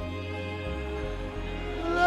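Slow worship music: sustained chords with a low bass, held in a brief pause between sung lines.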